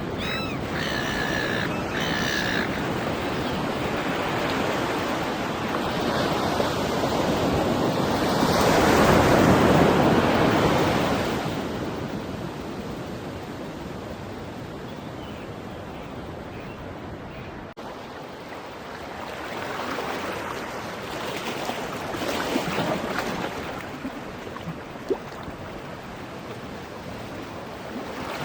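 Ocean waves breaking and washing up a beach, swelling to a loud surge about nine to ten seconds in and a smaller one around twenty seconds. Seagulls give a couple of short calls near the start.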